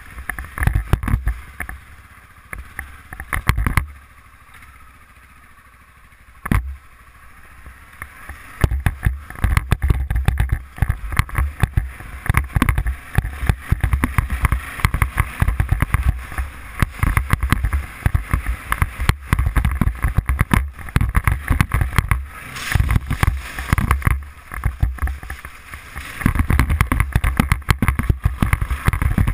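Arctic Cat 500 ATV ridden over gravel and dirt trails, its engine running under heavy wind buffeting on the action camera's microphone. A quieter lull comes in the first several seconds, broken by one sharp knock, before the loud gusty rumble returns.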